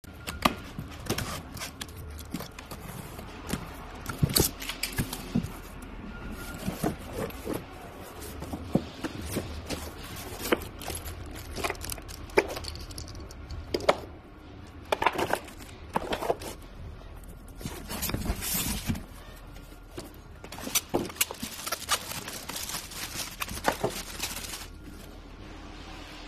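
Irregular scrapes, knocks and rustles of shipping packaging being opened and handled, over a steady low hum.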